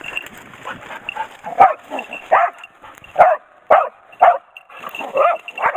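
Hunting dog barking at a cornered wild boar, holding it at bay: about eight short, sharp barks at irregular intervals.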